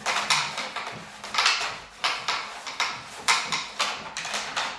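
Wooden pucks being shot and slid across a homemade pucket board of recycled floorboards and plywood, clacking against the board and each other in quick, irregular clacks.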